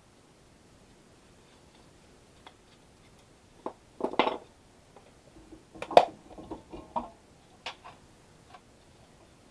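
A scatter of sharp metallic clinks and clatters, metal tools or parts being handled and set down, loudest about six seconds in; the first couple of seconds are nearly quiet.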